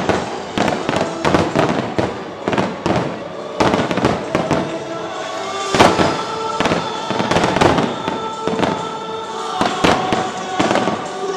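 Aerial fireworks going off in rapid succession, a dense barrage of bangs and crackles, over the show's music soundtrack with sustained tones.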